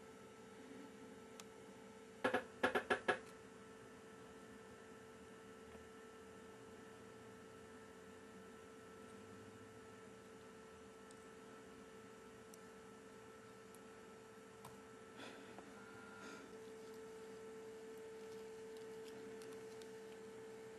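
Steady electrical hum at one pitch, with a quick run of four or five sharp clicks a little over two seconds in.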